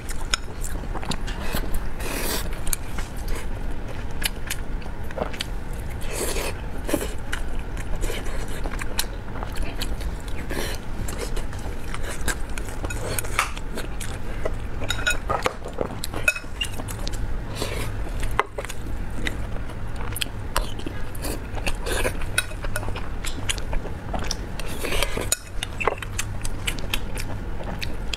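Mukbang eating sounds: chopsticks and a spoon clicking and scraping against a glass bowl of rice, mixed with chewing and biting of rice and braised pork belly, picked up close by a clip-on microphone.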